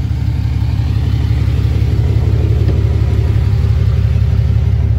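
Steady low rumble of a 6.7-litre Cummins turbo-diesel idling in a Ram 3500 HD pickup.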